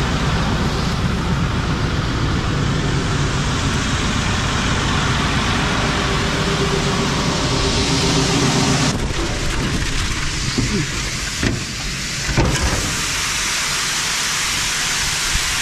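Soybeans pouring into a grain bin with a steady rushing hiss, over the low hum of a running engine that drops away about nine seconds in. There are a couple of short knocks near the twelve-second mark.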